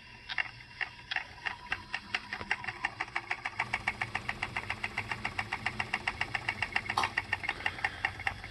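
RCA SelectaVision video disc player's turntable, driven by its belt-driven AC motor, spinning up. It gives a rhythmic ticking that starts slow and quickens to about six or seven ticks a second, over a low motor hum that grows about halfway through.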